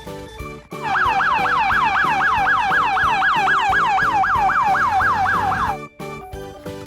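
Electronic siren in a fast yelp, its pitch falling over and over about three and a half times a second, starting just under a second in and cutting off near the end; background music with a steady beat plays underneath.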